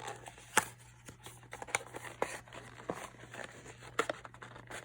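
Packaging of a cosmetics gift set being opened and handled: scattered clicks, taps and rustles. The sharpest click comes about half a second in.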